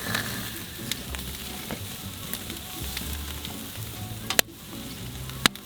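Beef short ribs sizzling on a grill over a wood campfire, with two sharp clicks near the end.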